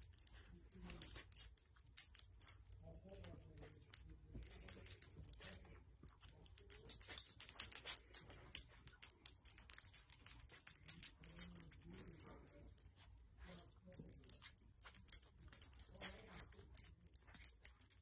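Faint rustling and many small irregular clicks as a puppy noses and burrows about in soft baby blankets.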